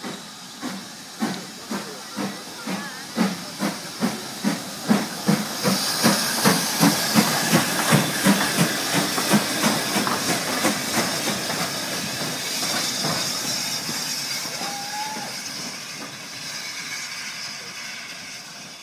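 BR Standard Class 5 4-6-0 steam locomotive No. 73096 pulling away, its exhaust chuffs quickening as it gathers speed, with steam hissing at the cylinders. The beats fade into a steady hiss as it draws off.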